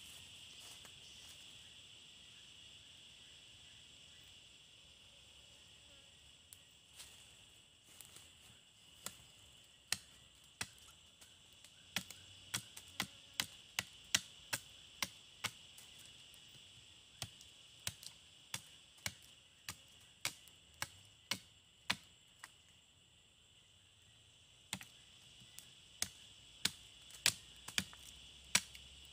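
Machete blade chopping at a wooden stick held in the hand: sharp wooden knocks in irregular runs of about two a second, starting several seconds in, with a short pause about three quarters of the way through.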